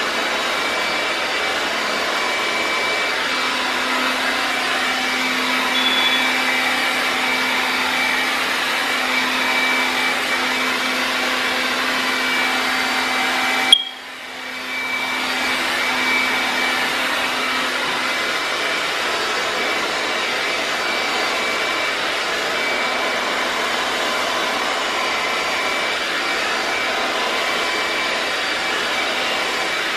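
Handheld hair dryer with a concentrator nozzle running steadily on high, blowing a loud, even whoosh of air through braided hair. About halfway through there is a sharp click, and the air noise drops briefly before building back up.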